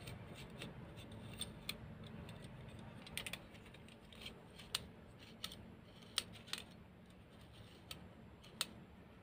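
Irregular sharp metallic clicks and snaps from a small pink desk stapler being handled open, its metal staple channel and hinge worked by hand during repair.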